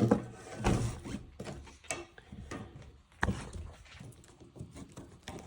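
Knocks and clicks from handling a Traxxas Slash 4x4 RC truck and its small tools during a suspension repair: three louder knocks, the sharpest about three seconds in, with lighter clicks between.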